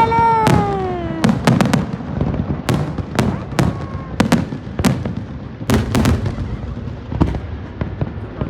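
Fireworks bursting overhead: many sharp bangs at irregular intervals, some in quick clusters, with a long tone falling in pitch near the start.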